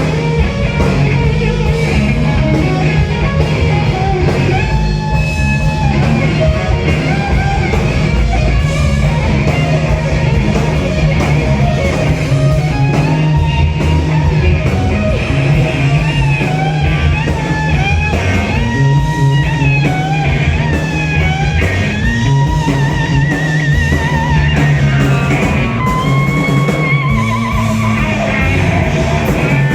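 Live rock band playing: an electric guitar plays a lead line of bent, wavering notes, with a fast vibrato near the middle, over bass and drums.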